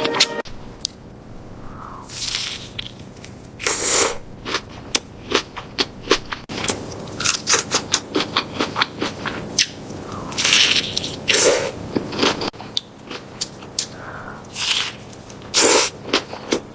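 Close-up eating sounds of roast meat being bitten and chewed: a rapid scatter of sharp crackles and clicks, with several louder, longer crunching bites.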